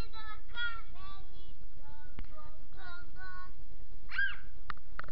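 A young child's high voice singing a sing-song chant in short, evenly held syllables, ending with one rising-and-falling note about four seconds in.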